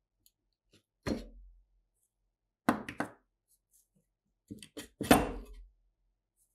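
A handful of separate knocks and clunks of rusty SKS rifle parts being worked loose from the wooden stock and handled during disassembly, the loudest about five seconds in.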